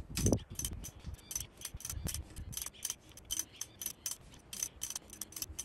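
Ratchet wrench clicking in a quick, even run, about four clicks a second, as it is swung back and forth to turn the nut on a threaded-bar puller. The puller is drawing a freed cast iron valve guide up out of the engine block.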